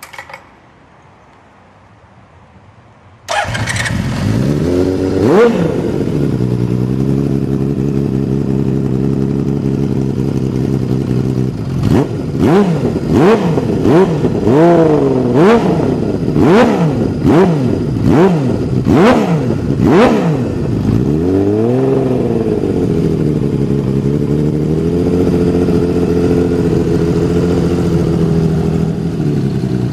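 Honda CBX1000's inline-six engine through a Devil aftermarket exhaust: it comes in suddenly about three seconds in, revs once and settles to a steady idle. Around the middle it gives a quick run of about eight sharp throttle blips, then one longer rev, and idles again.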